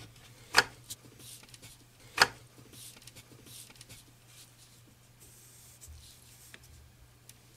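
Two sharp clicks, the second louder, as a small metal load cell is worked loose from a scale's housing, followed by faint rubbing and ticking as the part is handled in the fingers.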